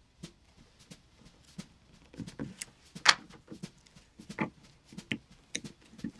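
Craft knife cutting and picking at the stitching of a leather wallet on a wooden board, with the leather pieces being handled: scattered small clicks and scrapes, the sharpest about three seconds in.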